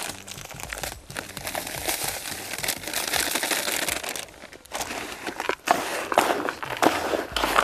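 A plastic bag of dry carp groundbait crinkling as it is emptied into a plastic bucket. This is followed, from a little after four seconds in, by hands stirring the coarse dry mix of groundbait, boiled maize and pellets in scattered rustles and crunches.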